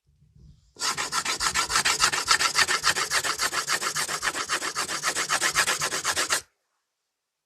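Pencil scratching on paper in rapid, even back-and-forth strokes, several a second, starting after a brief pause about a second in and stopping abruptly near the end.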